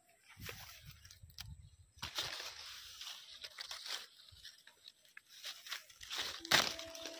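Guava tree leaves and twigs rustling and crackling as a hand pushes through the branches and pulls at them to pick the fruit, in uneven bursts with a loud one near the end. Background music starts just before the end.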